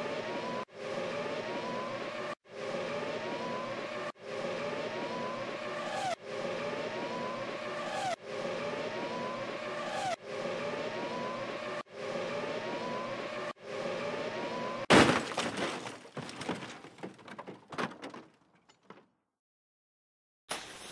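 Sport motorcycle engine accelerating, a short revving clip with a rising engine note repeated about every two seconds. About fifteen seconds in comes a loud crash, followed by scattered clattering of parts that dies away.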